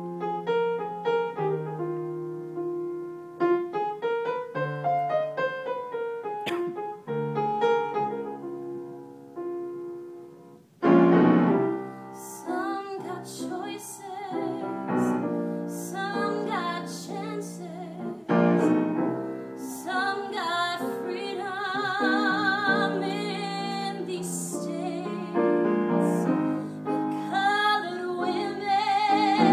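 A piano plays an introduction alone, then about eleven seconds in a woman begins singing a musical-theater solo over the piano accompaniment, with vibrato on her held notes.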